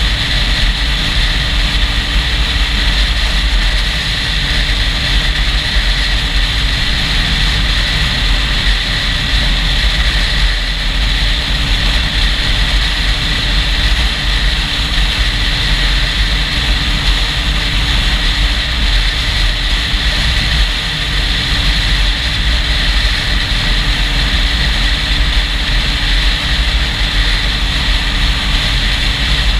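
Motorcycle riding steadily at highway speed, heard from a GoPro on the rider: wind buffets the microphone as a deep, unbroken rumble, over a steady engine hum and road hiss.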